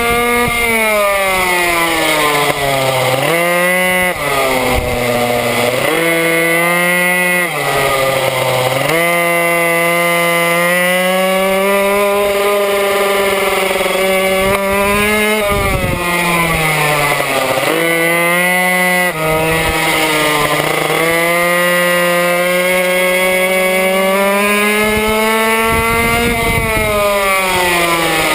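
Minimoto's small two-stroke engine running flat out in a race, its high whine dropping sharply as the throttle is closed for a corner and climbing again on the straights, about seven times.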